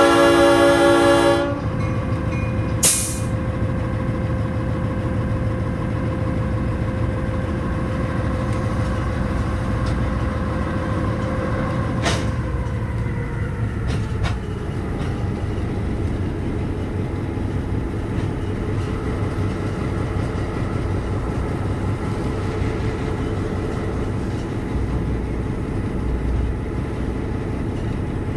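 A diesel locomotive's horn blast ends about a second and a half in, then the locomotive's diesel engine runs steadily as heard from inside the cab while the train rolls slowly, with a sharp click about three seconds in. The engine's pitch falls about halfway through, as the throttle is eased back.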